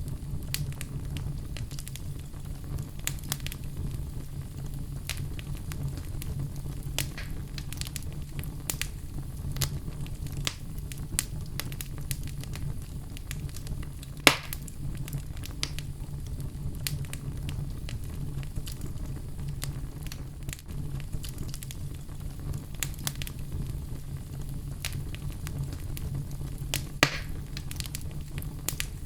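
Outdoor fire burning with a steady low rumble under frequent small crackles and pops. Two louder pops stand out, one about halfway through and one near the end.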